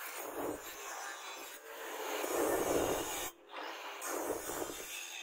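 Angle grinder with an abrasive disc grinding a steel knife blank made from truck leaf spring: a rough grinding noise that swells and eases with each pass of the disc, breaking off for a moment about three seconds in.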